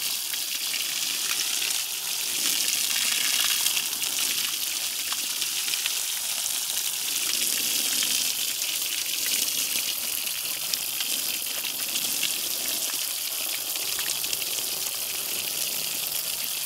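Garden hose spraying a steady stream of water that splashes onto a mini llama's wet wool, a continuous hissing splash.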